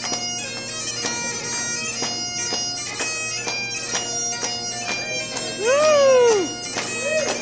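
Pipe band playing: Highland bagpipes with steady drones under the chanter melody, and drums keeping a regular beat. Near the end a voice gives one loud, high whooping shout that rises and falls in pitch.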